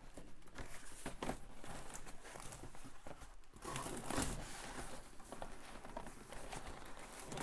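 Packaging crinkling and rustling with irregular handling noises as bare circuit boards are packed back into their box, a little louder about four seconds in.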